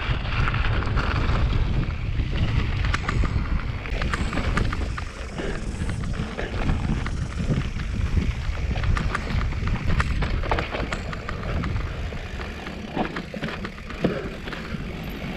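Mountain bike rolling fast downhill over gravel and then dirt singletrack, with tyre crunch and scattered rattles and clicks from the bike over bumps. Wind buffets the microphone with a steady low rumble.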